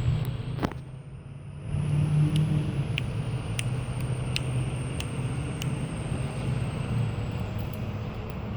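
Train running along the line: a low rumble under a high whine that rises over the first couple of seconds and then holds steady, with a run of about five sharp clicks roughly two-thirds of a second apart in the middle.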